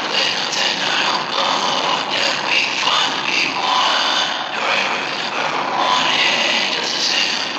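A person's voice run through CapCut's 'Losing Sanity' and 'Werewolf' voice effects, playing back as a dense, harsh, distorted wash with no clear words.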